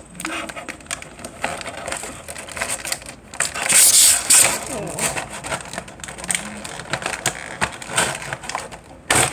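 Clear plastic toy packaging being handled and bent, crinkling and crackling irregularly, with a louder crackle about four seconds in and a sharp snap near the end.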